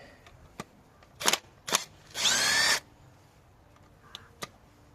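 Cordless drill-driver with a Torx T30 bit spinning up in a short burst, about two seconds in, undoing the bolts of an Opel Astra J 1.4's ignition coil pack. A few sharp clicks of the tool and parts being handled come before and after.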